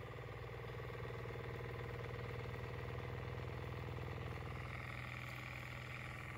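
Large homemade Newman motor running at about 9 volts, its 3D-printed tri-head neodymium-magnet rotor spinning fast inside the coils with a steady hum.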